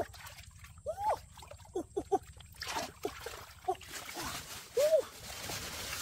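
Hand splashing and sloshing through muddy water in a small hole, with the noise thickening about halfway through. A few short vocal sounds stand out over it.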